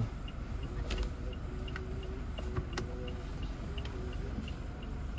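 Toyota Innova Reborn's right turn-signal indicator ticking steadily, about three ticks a second, over the low hum of the engine idling.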